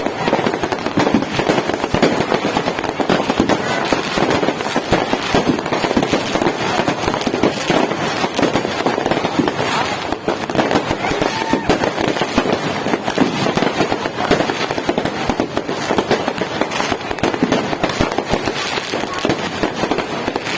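Many fireworks going off at once: a dense, continuous run of bangs and crackling pops with no break.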